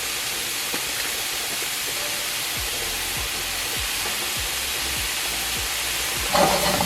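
Sautéing vegetables (green onions, yellow bell pepper and mushrooms) sizzling in olive oil in a frying pan, a steady hiss, under background music with a steady beat. A brief louder clatter comes near the end.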